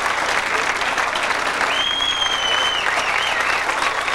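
A banquet audience applauding steadily in a large room, with a high, steady whistle for about a second near the middle.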